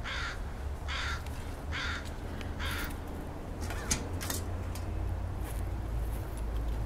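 A crow cawing repeatedly: harsh calls about one a second for the first few seconds, then a few more scattered ones.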